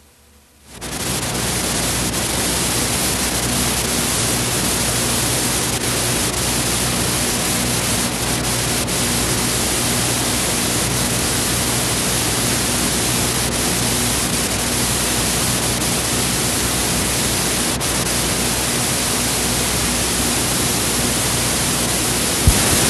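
Steady hiss of VHS tape playback with no programme sound on the track, a faint low mains hum under it; it comes in sharply about a second in, and a single click sounds near the end.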